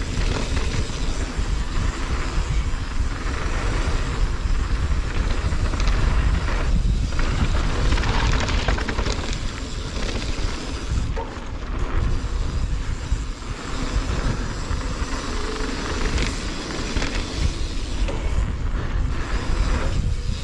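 Mountain bike rolling down a dirt flow trail, with tyre noise and a steady deep rumble of wind buffeting the camera's microphone, rising and falling with the ride.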